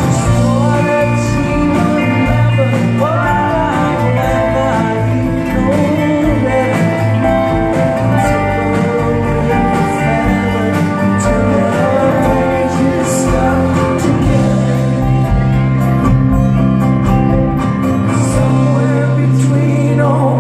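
Live band playing a song: a man singing lead over acoustic and electric guitars, drums and keyboard, heard from the audience.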